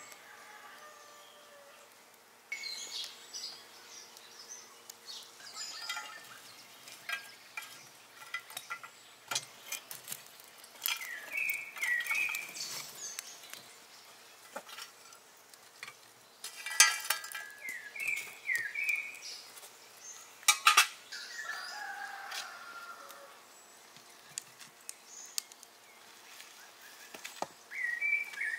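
Birds chirping and calling on and off, with scattered knocks and clatters from things being handled; the loudest is a sharp clatter a little past halfway through.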